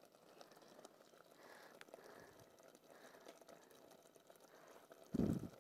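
Faint scrapes and light clicks of a metal ladle scooping sauce from a steel pot, with a single dull low thump near the end.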